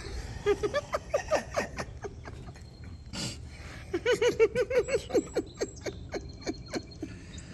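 A person laughing in two bouts of quick, high-pitched giggles, with a few light clicks between them.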